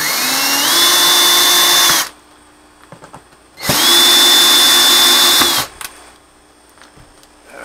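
Power drill running in two bursts of about two seconds each. Its whine rises as the motor spins up, holds steady, then cuts off.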